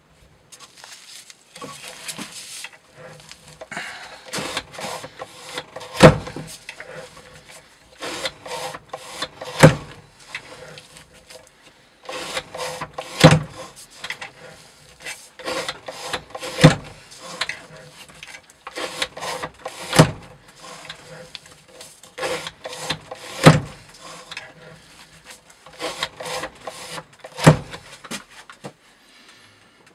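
Rope being cut on a weighted edge-retention test rig against a CPM Cru-Wear knife edge: a repeated rasping rub of cord across the blade. It is broken by a sharp knock about every three and a half seconds, seven in all.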